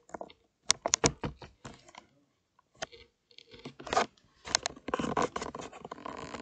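Hands handling a plastic-covered picture book, making a string of sharp clicks and taps, with a denser rustling stretch near the end.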